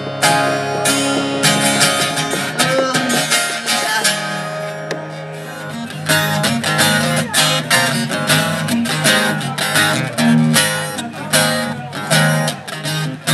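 Acoustic guitar strummed in a rhythmic chord pattern, without singing. The strumming thins out for a couple of seconds in the middle, then picks back up.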